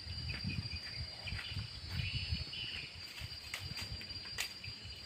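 Tropical outdoor ambience: a steady high drone of insects, with a few short chirps about a second and a half in, over irregular low buffeting on the microphone.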